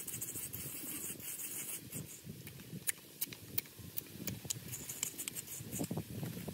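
Coarse salt sprinkled by hand from a coconut-shell bowl onto a raw, butterflied fish on a wooden board: soft rustling with a cluster of light ticks about three seconds in.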